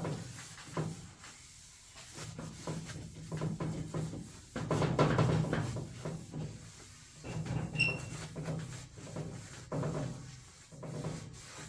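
A rag rubbing over the generator's sanded body panels to wipe them down with acetone before priming. The rubbing comes in irregular strokes, with scattered light knocks and clicks as the parts are handled, and is loudest about five to six seconds in.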